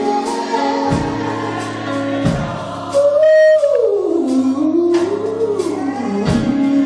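Live gospel music: a solo singer's wordless run holds a high note, then slides down and curls back up in pitch, over sustained keyboard chords with steady cymbal strokes and occasional low drum hits.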